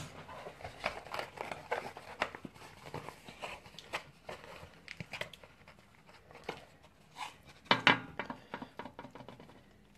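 Cardboard burger box being opened and the burger handled and lifted out: a run of light crackles, crinkles and clicks, densest in the first few seconds and thinning out later, with one louder rustle about eight seconds in.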